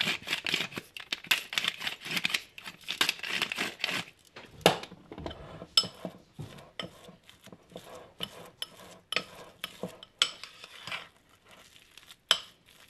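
A hand-twisted spice mill grinds over a bowl, a dense crackling run of fast clicks for about the first four seconds. Then a metal spoon stirs and mashes a thick pâté in a ceramic bowl, with scattered clinks and scrapes against the bowl.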